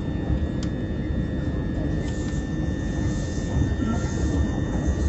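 Cabin running noise of a Class 357 Electrostar electric multiple unit at speed: a steady low rumble with a thin, steady high-pitched tone over it.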